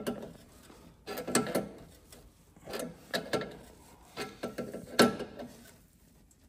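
Hand tools clicking and clinking on metal fittings under a truck frame, in short bursts with pauses between them, as air-tank lines are fitted and tightened.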